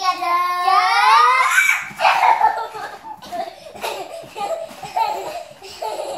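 Two young girls laughing: a long high-pitched squeal that rises in pitch for the first second and a half, then choppy giggling and excited chatter.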